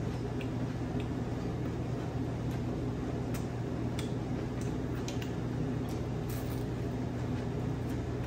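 A steady low mechanical hum with faint, irregular clicks and crunches from someone eating fried fish close by and dipping it into sauce cups.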